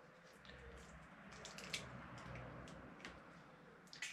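Faint soft squelching and a few small clicks as an eggshell is pulled apart and raw egg drops into a bowl of minced meat.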